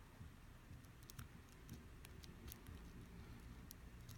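Near silence with a few faint, scattered ticks of a hook pick working the pin stacks inside a five-pin key-in-knob lock cylinder under light tension.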